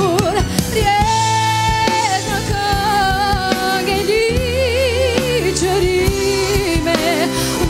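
A live band plays while a woman sings long held notes with a wavering vibrato, over violins, drums and a steady bass line.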